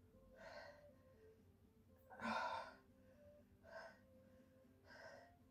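A woman breathing out hard in four heavy exhalations, the second, about two seconds in, the loudest: laboured breathing from the strain of an arm-pulse exercise.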